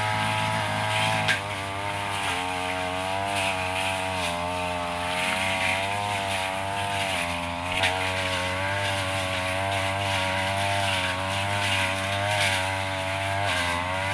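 Backpack brush cutter's engine running under load, its speed wavering up and down as the blade cuts through dense undergrowth. Two short sharp clicks stand out, about a second in and near the middle.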